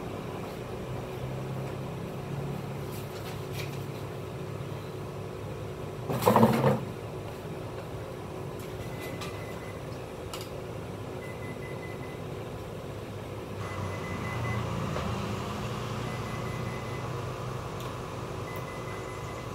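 A large office copier humming steadily with its front open. About six seconds in, a loud clatter as a drawer unit is slid out of the machine. From about nine seconds on, short high beeps repeat every two to three seconds.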